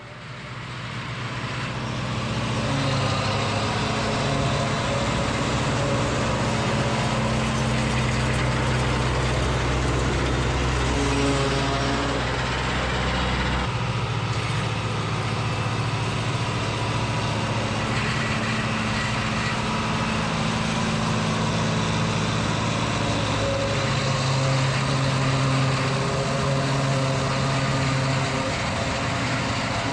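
Farm tractor engine running steadily. Its tone changes abruptly about halfway through.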